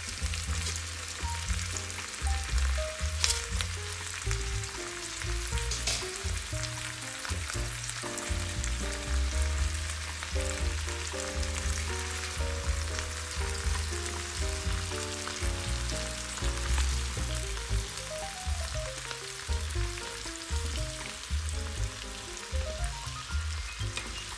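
Broccoli and sliced onion sizzling in a frying pan as they are stirred with wooden spatulas, with a couple of sharp clicks about three and six seconds in. Background music of short stepped notes over a bass line plays throughout.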